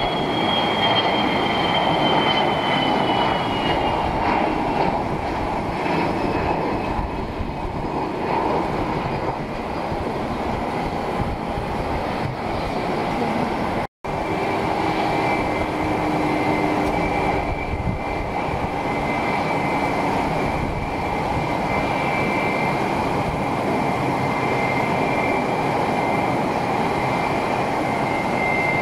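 Jet aircraft engines running loud, with a high turbine whine that falls in pitch over the first few seconds. The sound cuts out abruptly about halfway through, then continues as steady jet engine noise with a steady high whine.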